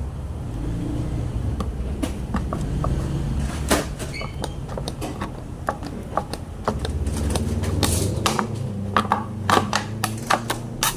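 Scissors snipping, a run of short sharp clicks that comes thicker and faster in the second half, over a low rumble of handling noise.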